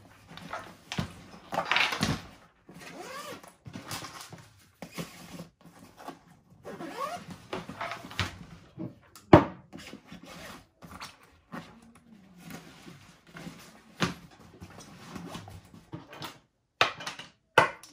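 Wandrd Prvke 21L backpack being handled and packed up: rustling of its fabric and straps with irregular clicks and knocks, and one sharp knock about nine seconds in.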